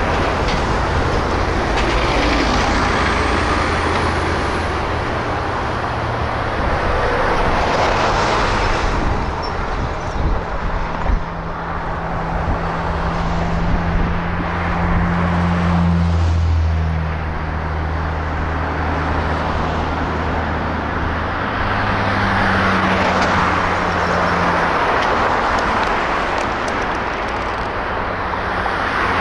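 Motor vehicles passing one after another in slow swells, over a steady low engine hum that shifts pitch a few times.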